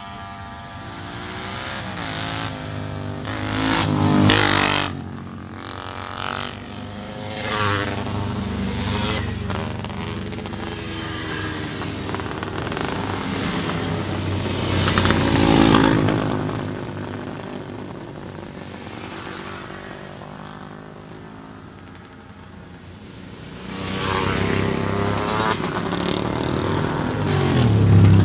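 Classic racing motorcycles passing one after another at speed through a bend, engines revving and sliding in pitch as each goes by. The loudest passes come about four seconds in, around fifteen seconds in, and from about twenty-four seconds to the end.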